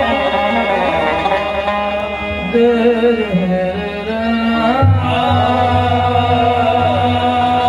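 Sufi devotional music: a male singer holds long, wavering sung notes over a steady instrumental drone, and a deeper accompaniment comes in about five seconds in.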